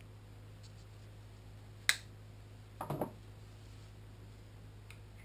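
Handling noises from a bare Kawasaki ZX-10R engine being gripped on a workbench to turn the crankshaft: one sharp click about two seconds in, a short cluster of knocks a second later, then a faint tick, over a low steady hum.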